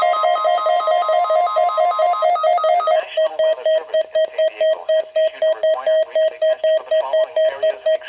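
Several NOAA weather alert radios, a Midland among them, beeping their alert tones together at about four beeps a second, set off by a Required Weekly Test. About three seconds in, all but one stop. One keeps beeping while a radio voice broadcast comes in underneath.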